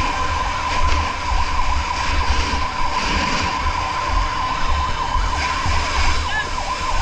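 Emergency vehicle sirens sounding continuously, a fast warbling tone around one pitch, over a steady low rumble, the sound of vehicles responding to a fire alarm.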